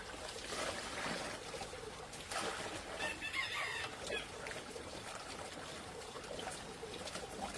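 Chickens clucking, with one short wavering call about three seconds in.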